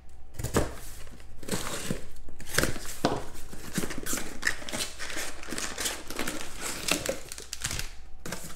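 Sealed cardboard box being slit open with a box cutter and torn open, then foil-wrapped card packs pulled out and stacked: a run of scraping, tearing and crinkling.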